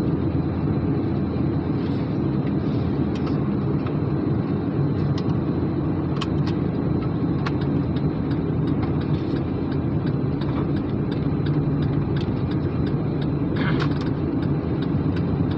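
Steady low engine rumble of a running motor vehicle, with a few faint clicks.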